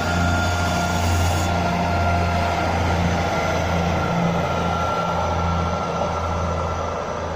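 Diesel engines of a Northern Class 158 diesel multiple unit running at the platform: a steady low drone that pulses gently, with a thin steady high tone above it.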